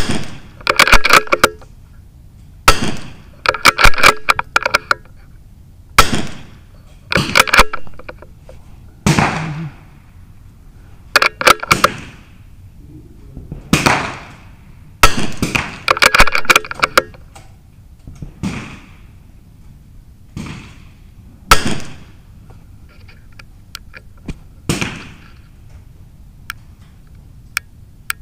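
.22 LR rimfire rifle shots from the firing line: sharp cracks with a short ring after each. They come irregularly every second or two, sometimes several in quick succession.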